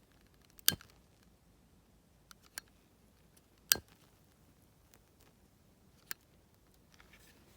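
Burning wood crackling in an open campfire: a few scattered sharp pops, the two loudest about a second in and just under four seconds in, with smaller snaps between.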